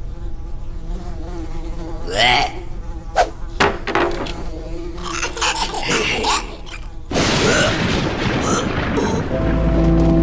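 Cartoon sound effects: a buzzing like a flying insect, with short gliding squeaks and a few sharp clicks. About seven seconds in a loud hissing noise starts suddenly, and music comes in near the end.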